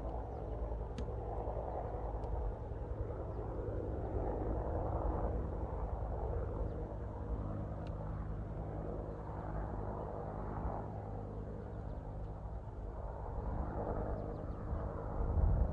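Outdoor ambience: a steady low rumble with an engine hum that swells and fades every few seconds.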